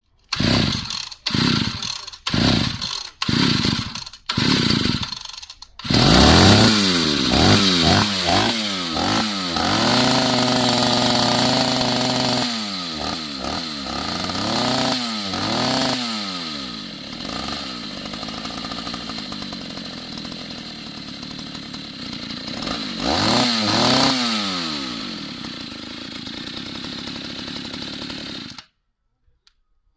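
ZiD M228 two-stroke chainsaw being pull-started: a series of short bursts over the first few seconds, then the engine catches about six seconds in. It revs up and down, holds a steady high rev, drops to a lower steady run with a few more blips of the throttle, and stops abruptly near the end.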